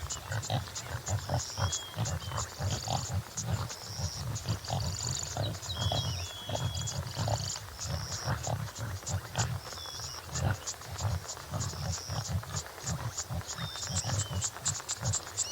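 Topi antelope giving a long run of low, irregular grunts. Birds whistle and chirp in the background.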